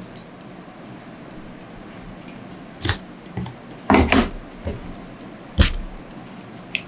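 Handling noises from a camera gimbal and its foam packaging tray: scattered clicks, knocks and rubbing, with a cluster of knocks about four seconds in and a solid thump a little later.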